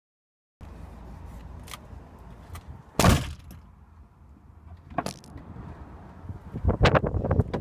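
Knocks and clicks from things being handled in a van's cab, over a low steady rumble. A loud thump comes about three seconds in, another knock about two seconds later, and a quick run of clicks and rattles near the end.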